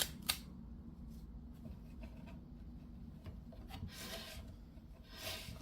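Close-up handling of a pocket multitool: two sharp clicks at the start, then light ticks and two swells of rubbing and scraping as the metal tool is turned and worked in the hands.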